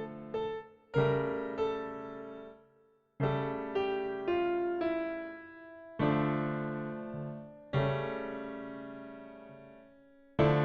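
Solo piano playing a slow, dark piece: chords struck every second or two and left to ring and fade away. Near-silent pause about three seconds in.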